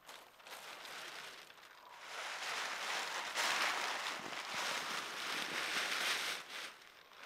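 Rustling that swells about two seconds in, holds for several seconds, and fades near the end.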